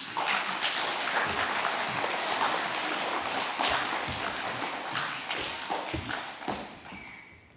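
Audience applauding, a dense patter of many hands clapping that starts suddenly and dies away over the last couple of seconds.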